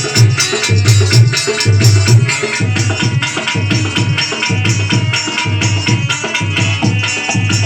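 Instrumental devotional music with no singing: a hand drum keeps a steady beat under rattling, jingling percussion and sustained melody tones.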